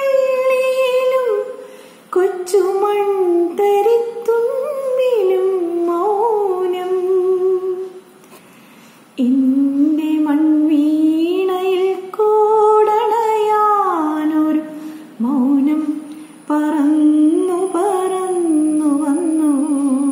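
A woman singing a slow Malayalam song unaccompanied, in long held notes that slide between pitches, pausing twice for breath.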